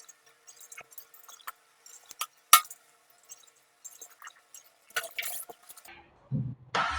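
Small clicks and taps of a Cat6 cable and plastic RJ45 connector being handled, with one sharper click about two and a half seconds in. Rustling follows, then a dull thump near the end.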